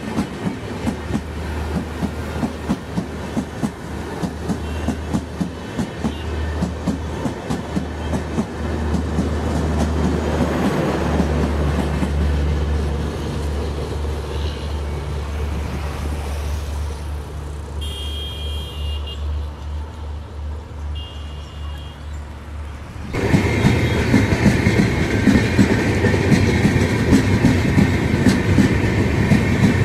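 Indian Railways passenger coaches rolling slowly past close by, wheels clicking rhythmically over rail joints; the sound thins out as the last coach moves away, with two short high horn toots a few seconds apart. About three quarters through it cuts abruptly to a much louder rumble and clatter of passenger coach wheels passing right beside the track.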